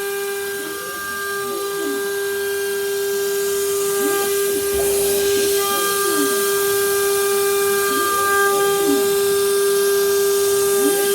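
CNC router spindle running at a steady high whine while milling a jig. Over it, tones repeatedly sweep up and down as the axis motors speed up and slow down with each move.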